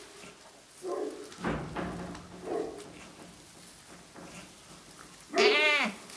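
Goats calling: short, soft, low calls about one and two and a half seconds in, then a loud bleat near the end that rises and falls in pitch.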